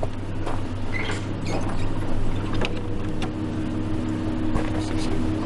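Car engine idling steadily, with a few light clicks and knocks.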